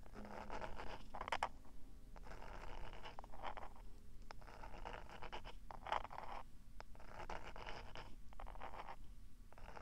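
Fingertips scratching and rubbing on the rubber ears of a binaural dummy-ear microphone, heard right at the ears: a series of scratchy strokes of about a second each with short pauses between them.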